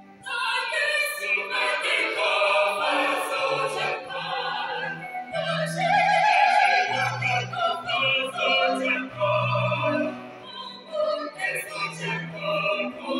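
A small mixed choir of men and women singing together in harmony, the voices coming in together just after the start.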